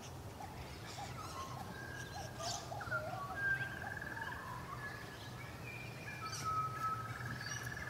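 Birds calling faintly in the background: short chirps and rising notes, with a few trilled notes each held for about a second, over a steady low hum.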